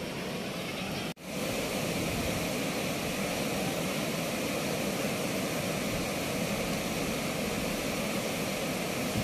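Turbulent river water rushing through the open gates of a weir: a steady, unbroken rushing noise. It drops out for an instant about a second in, then carries on.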